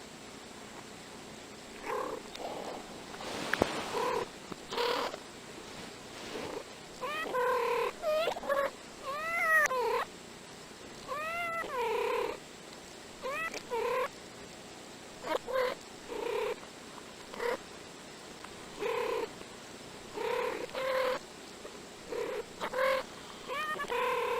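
Two cats trading short meows and chirping calls, played in reverse so each call's pitch runs backwards. The calls start about two seconds in and come thick and fast, many with an arching rise and fall.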